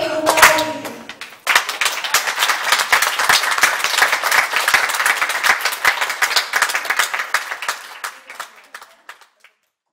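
The last sung note of the song and its backing track fade out. About a second and a half in, audience applause breaks out, a dense patter of many hands clapping, which thins and dies away near the end.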